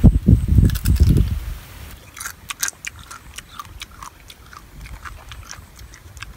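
Close-up eating sounds of someone biting and chewing a crab leg in its shell. A loud, muffled rumble fills the first second and a half, followed by a run of crisp crunches and clicks as the shell is chewed.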